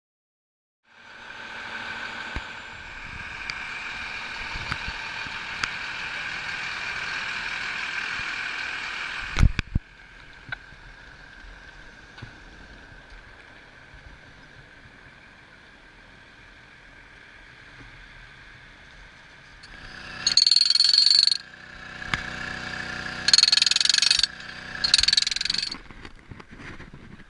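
A military cargo truck's engine running steadily, with a sharp knock about nine seconds in. Near the end come three short, loud hissing bursts.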